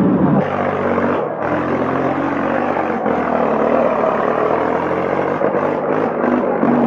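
Old tractor engine running steadily, with an abrupt change in the sound about half a second in.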